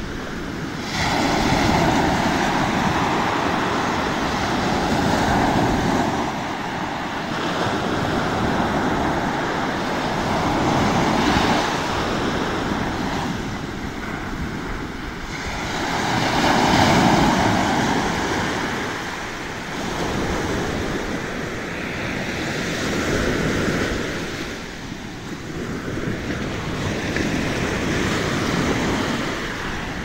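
Small waves breaking and washing up a sandy beach, the surf swelling and easing every few seconds.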